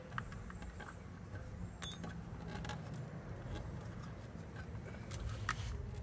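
The Suzuki Boulevard C50's stock plastic turn-signal flasher relay is wiggled by hand against the side clips that hold it. It gives scattered small clicks and creaks, with one sharp click a little under two seconds in.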